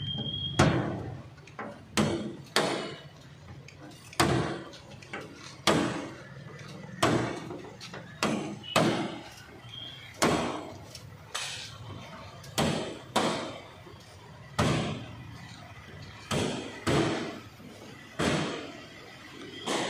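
Repeated hammering: sharp blows about once a second, irregularly spaced, each with a short ringing decay.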